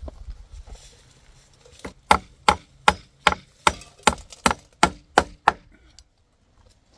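Hammer striking a wooden slat panel: about ten quick, even blows, roughly three a second, beginning about two seconds in.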